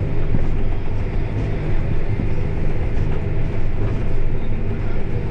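Vehicle engine running steadily, a low, even drone.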